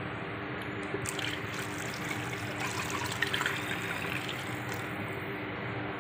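Water poured from a glass jug into a pot of thick kadhi curry, running from about a second in until near the end.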